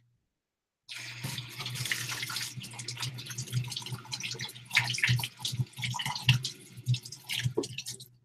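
Water running from a tap into a sink, with hands being rinsed under the stream; the water comes on about a second in and stops just at the end.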